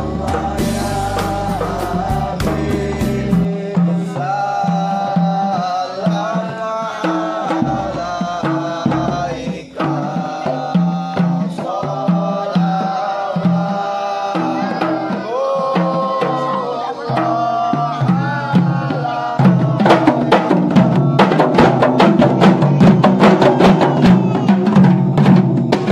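Kompang, hand-struck Malay frame drums, beaten in a steady rhythm under a chanted, sung melody. About 19 seconds in the singing gives way to the whole group of kompang playing louder, fast interlocking beats.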